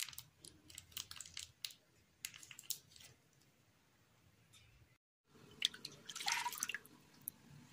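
Soft bread roll being pulled apart and squeezed by hand, giving a few light crackles in the first seconds. After a cut, milk is poured from a glass into a bowl: a splashing pour lasting about a second, the loudest sound here.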